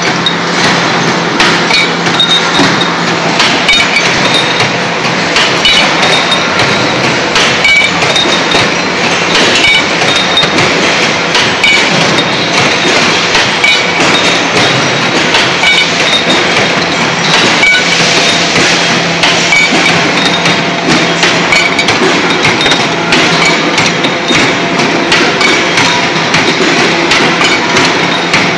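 CNC automatic bar feeding and cutting machine running: continuous loud metallic clanking and knocking over a steady low hum.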